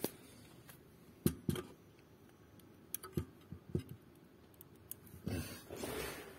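Small clicks and knocks of electronic hardware being handled: a software-defined-radio circuit board and its enclosure being moved about on a desk, about seven sharp taps spread over the first four seconds, then a longer rustle of handling near the end.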